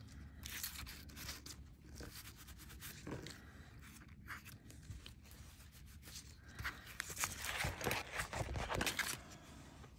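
Crinkly rustling and scraping of an aluminium metal-tape tag being handled, turned and slid over a plastic cutting mat. It grows louder for a couple of seconds near the end as the tag is lifted off the mat.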